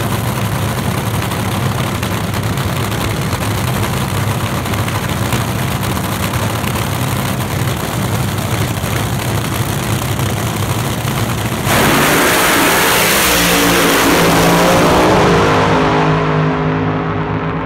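Vintage dragster's engine running loudly and steadily at the starting line, then about twelve seconds in it launches at full throttle with a sudden jump in loudness. The engine note climbs as the car accelerates away down the strip, and the sound fades near the end as it recedes.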